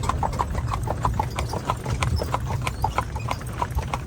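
Hooves of a horse pulling a carriage clip-clopping on a hard road in a quick, even rhythm of about five strikes a second, over the low, steady rumble of the ride.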